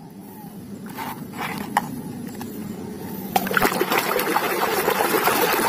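A plastic toy being scrubbed with a sponge in water: a few light knocks at first, then sloshing and splashing that gets louder about three seconds in and keeps going.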